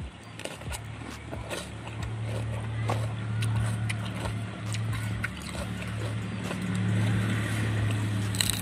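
A low engine hum runs steadily in the background, swelling louder twice, under small chewing clicks from raw bitter melon. A loud crunching bite into the raw bitter melon comes at the very end.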